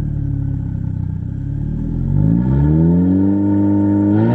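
Mk4 Volkswagen Golf's engine and exhaust idling, then revved up about two seconds in and held at higher revs, louder than the idle.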